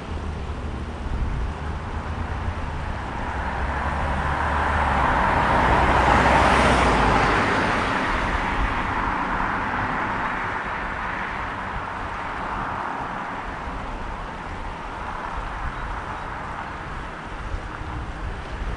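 Road traffic: a vehicle passing, its tyre and engine noise building to its loudest about six seconds in and then slowly fading, over a steady traffic hiss.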